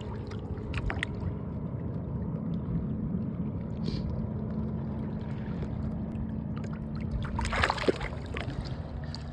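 Steady low rumble of a fishing boat on open water, with a faint steady hum under it. A short burst of knocks and rustling comes about three-quarters of the way through.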